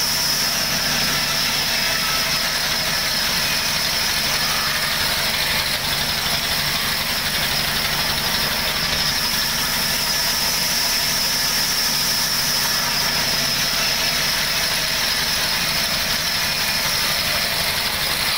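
Large band saw mill running and ripping a wooden plank lengthwise, a steady high-pitched whine over the machine's constant running noise.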